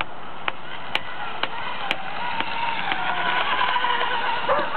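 Engine of a radio-controlled model hydroplane running on the plane at about half throttle, a distant whine that rises and wavers in pitch in the second half. Sharp ticks come about twice a second in the first half.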